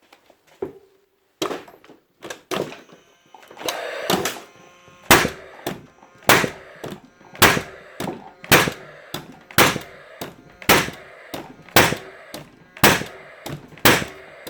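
Paslode IM350+ gas-powered nail gun firing shot after shot, about one a second, nine sharp cracks each followed by a lighter click, after a few handling clicks at the start. It is being test-fired after a full service with its reed valve strip cleaned.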